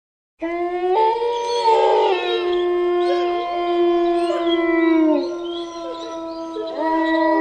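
Wolves howling in chorus: several long, overlapping howls, each held steady and then falling, begin after a brief silence, with fresh howls joining about a second in and again near the end.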